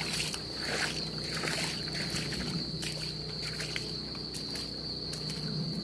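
A steady high-pitched insect chorus trilling without break, over occasional soft sloshes of floodwater and a faint low hum.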